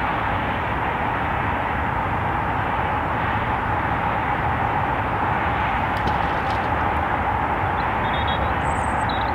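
Steady, even rumble of distant traffic, with a couple of faint clicks about six seconds in and a few faint high chirps near the end.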